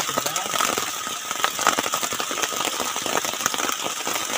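Heavy tropical rain pouring down, a dense steady patter of countless drops.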